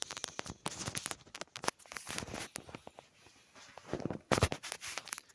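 Spoon stirring a honey, lemon and spice mixture in a container, with rapid irregular clicks of the spoon against the sides and a louder knock about four seconds in.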